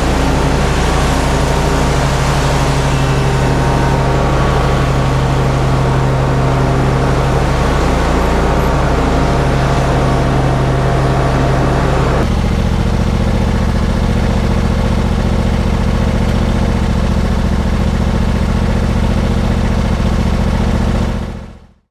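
Husqvarna P-ZT 48 zero-turn mower engine running steadily. Its tone changes abruptly about twelve seconds in, and it fades out at the end.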